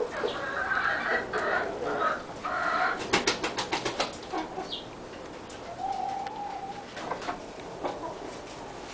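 White-faced Black Spanish hens calling softly from the nest box while laying: a few seconds of raspy clucking, then a quick run of sharp taps about three seconds in, and one drawn-out low note around six seconds in.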